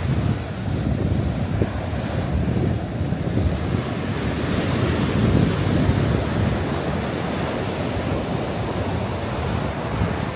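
Ocean surf breaking and washing up the sand, with wind buffeting the microphone. The wash swells loudest about halfway through.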